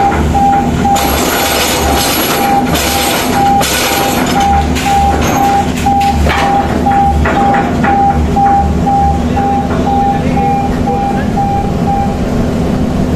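Rotary piling drill rig running loud and steady at the footing bore, with an electronic warning beeper sounding about twice a second that stops shortly before the end, and a few knocks in the middle.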